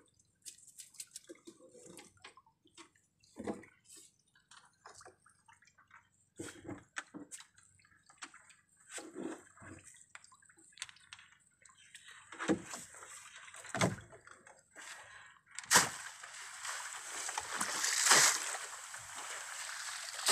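Wet netting fish traps being handled in a boat, with scattered small knocks and drips. About 16 s in a sharp knock, then loud water splashing and streaming as a net trap is worked at the sea's surface over the side.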